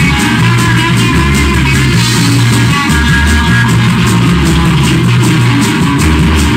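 Rock music: guitar over a moving bass line and a steady beat.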